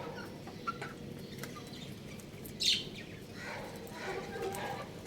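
Young chicken chirping: a few faint short peeps, one loud high chirp about two and a half seconds in, then softer, lower calls.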